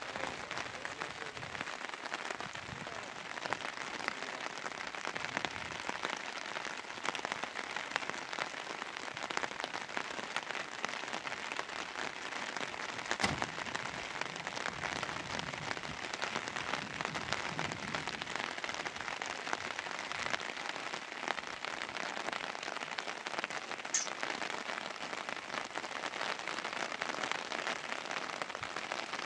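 Steady rain pattering on a surface, a dense even hiss of fine drops, with one sharp knock about 13 seconds in and a brief high squeak near the end.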